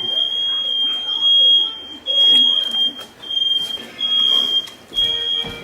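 Household smoke alarm going off: a single high-pitched electronic beep repeating about once a second, each beep about half a second long.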